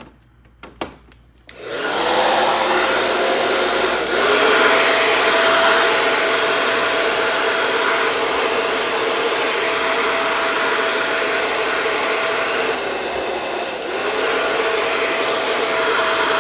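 A few clicks, then a Taiff hair dryer starts and runs with a steady fan whoosh and hum, stepping louder about four seconds in and dipping briefly near the end. It runs smoothly with no rattle, its motor bearing freshly replaced.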